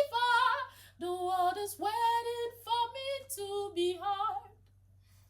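A woman singing a wordless melodic run with vibrato in a gospel song, stopping about four and a half seconds in.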